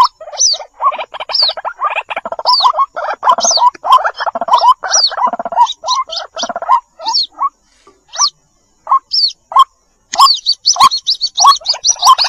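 White-breasted waterhens calling: a fast run of short, repeated notes, with thin high peeping from waterhen chicks over them. The calls thin out for a couple of seconds after the middle, then pick up again. It is a recorded lure call, played to draw the birds in for trapping.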